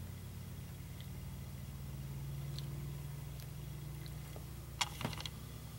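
A low, steady hum with faint room noise, and a few soft clicks, two of them close together about five seconds in.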